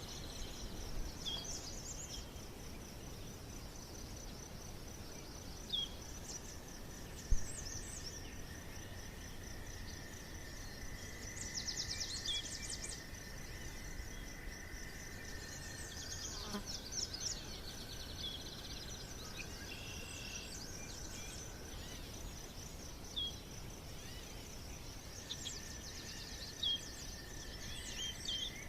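Outdoor ambience: a steady, high insect trill with birds chirping now and then. There is one sharp click about seven seconds in.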